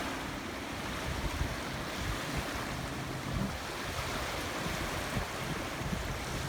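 Wind and water from an open waterway: a steady rushing wash, with wind rumbling unevenly on the microphone.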